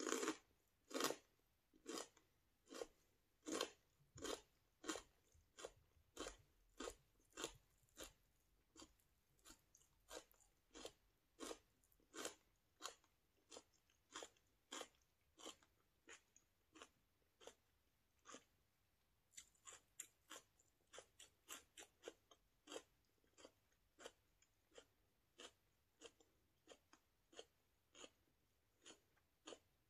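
Mouth chewing raw celery, a string of crisp crunches about one a second at first, coming quicker past the middle, loudest near the start and softer toward the end.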